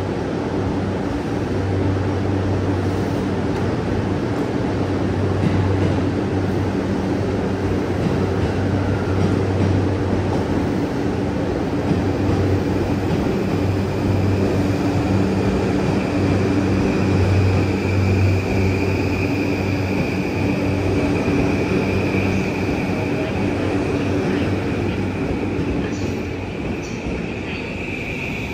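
JR East E235 series 1000 electric train standing at a platform with a steady low hum from its onboard equipment. A steady high whine, from its Mitsubishi full-SiC VVVF traction inverter, joins in from about halfway as the train pulls away.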